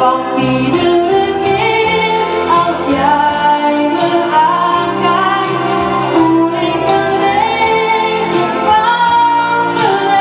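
A woman singing a Dutch-language song live into a microphone, her voice gliding between held notes over steady instrumental accompaniment.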